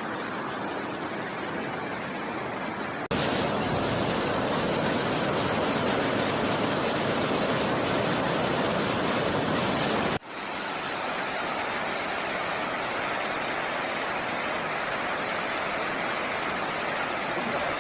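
Waterfall: a steady rush of falling water. The level jumps up suddenly about three seconds in and drops back about ten seconds in.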